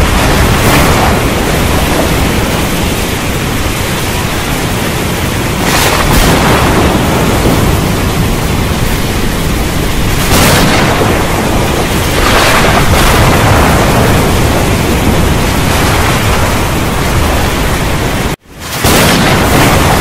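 Heavy rain falling steadily while thunder rumbles low and deep, swelling a few times. Near the end the sound cuts out for a split second and comes straight back.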